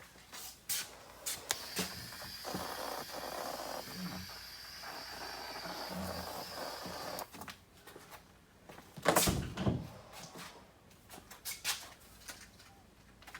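A spray gun hissing steadily for about five seconds as primer is sprayed onto parts, then stopping. After it come scattered knocks and clatter of handling metal parts, with one loud knock about nine seconds in.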